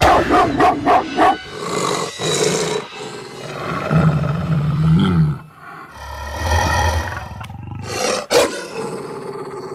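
Snarls, barks and growls from a Spirit Halloween monster-dog doghouse animatronic. A quick run of about five barks comes first, then long low growls, and a sharp loud snarl near the end.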